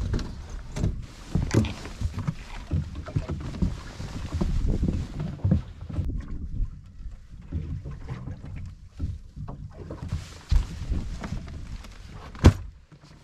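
Small open fishing boat adrift: wind on the microphone and water against the hull, with scattered irregular knocks and bumps and one sharp knock near the end.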